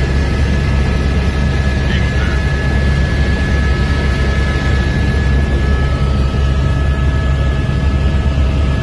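Helicopter heard from inside the cabin in steady flight: a loud, even rotor and engine drone with a constant high whine over it.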